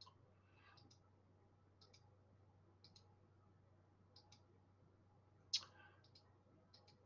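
Faint double clicks of a computer mouse button, about one press-and-release a second, advancing the slide's bullet points; one click a little past five seconds in is louder. Between them, near silence with a faint steady low hum.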